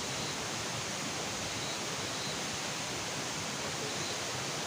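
Steady, even hiss of outdoor background noise, like rushing water or wind, with a few faint short high chirps now and then.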